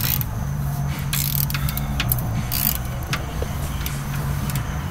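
Hand ratchet clicking in short, irregular spurts, with knocks of the tool against metal, as a transmission pan bolt is worked tight in a cramped spot.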